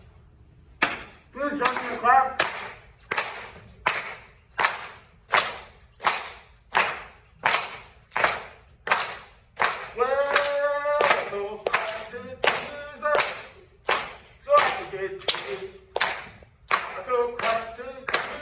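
Steady rhythmic handclapping, about one clap every three-quarters of a second, starting about a second in, with voices singing along between the claps.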